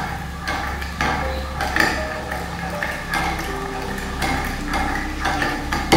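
Metal spoon stirring a liquid pudding mixture in a glass measuring jug, clinking against the glass many times at an uneven pace.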